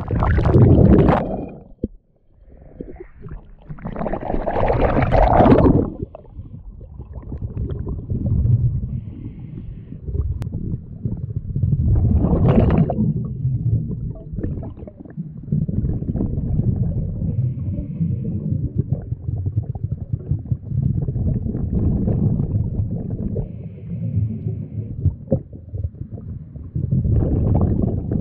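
Scuba diver breathing through a regulator, heard underwater: exhaled bubbles gurgle out in four loud surges several seconds apart, over a steady low rumble.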